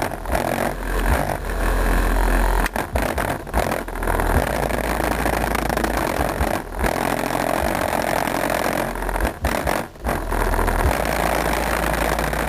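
Two 10-inch Rockford Fosgate Punch Stage 1 subwoofers in a car playing long, held deep bass notes that step between pitches, with a few short breaks between them. They are heard from outside the car and are being broken in.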